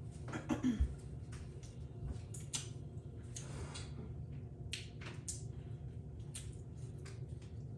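Close-up eating of a seafood boil: irregular sharp cracks and wet squishes of shells being broken and food chewed, loudest in a cluster about half a second in, over a steady low hum.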